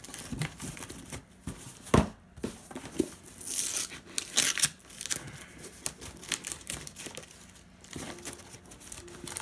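Tape being peeled and torn off a cardboard box in irregular rips, the loudest a sharp one about two seconds in and a longer pull around three to four seconds in.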